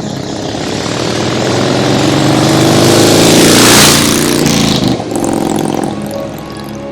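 A motor vehicle engine passing close by: it grows louder to a peak about four seconds in, then fades away, over background music.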